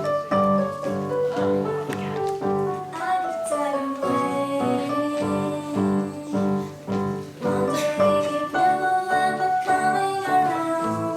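Background music: a piano-led pop song with a steady pulse of chords and a singing melody line.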